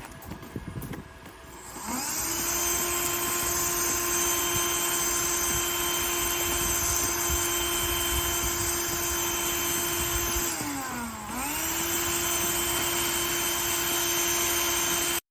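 Vacuum cleaner motor spinning up to a steady whine with a loud rush of air. About ten seconds in its pitch sags and recovers over a second, as the motor is briefly loaded. It stops abruptly near the end.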